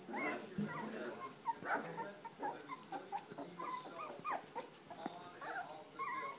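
Three-week-old standard poodle puppies whimpering and squeaking: many short, high, overlapping cries from several pups at once.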